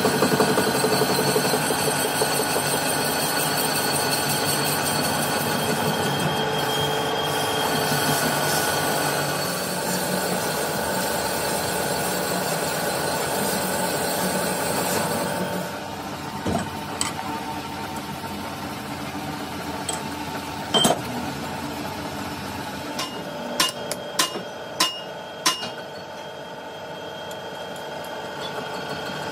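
Metalworking machinery running steadily, then dropping away to a quieter background broken by sharp metal clinks and knocks. A quick run of four or five ringing clinks comes near the end.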